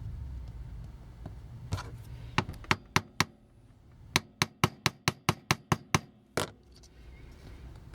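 Sharp hammer taps on a tool driven against a stuck part of a toy: a few separate taps, then a quick even run of about ten at roughly five a second, then one more. The part does not give.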